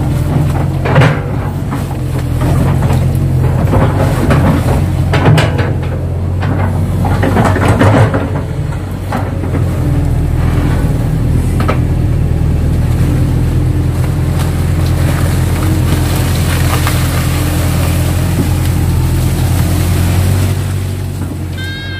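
Kato crawler excavator's diesel engine running steadily. Over roughly the first half there is crackling, snapping and knocking as the bucket pulls and presses down palm fronds; after that the engine runs on alone.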